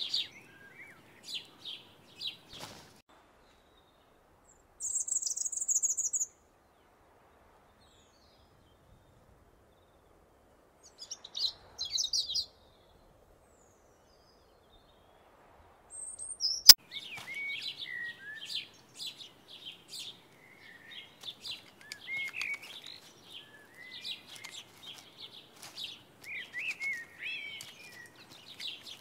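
Small songbirds chirping: a few short calls, a high trill, and another burst of calls, separated by quiet gaps. A single sharp click comes about 17 seconds in, and after it the chirping runs on almost without a break.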